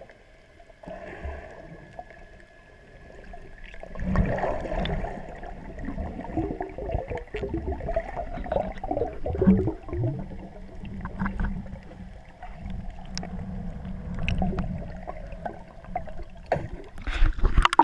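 Muffled underwater sound picked up by a camera in a waterproof housing: gurgling water and bubbles with a low rumble, getting louder about four seconds in. A brief splashing burst comes near the end as the camera is just below the surface.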